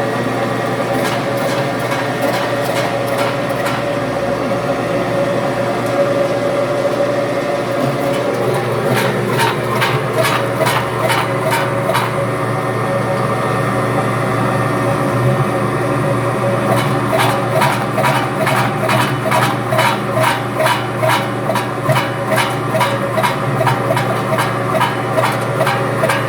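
SMT-V900 electric vegetable dicer running with a steady motor hum. Its cutter clacks at a regular beat of about two a second as it dices sweet potato into cubes, in a short stretch about a third of the way in and again through the second half.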